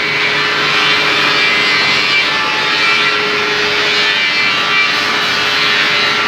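Steady mechanical running noise, an even hiss-like drone with faint steady tones in it and no breaks.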